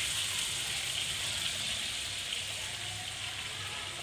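Hot butter and oil sizzling in a karahi with a spoonful of flour just added, the first stage of a roux for white sauce. A steady hiss that slowly fades.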